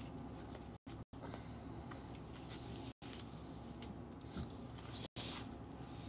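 Faint rustling and handling noises close to the microphone, with small scattered clicks and one sharp click a little before the three-second mark. The audio cuts out completely for a split second several times.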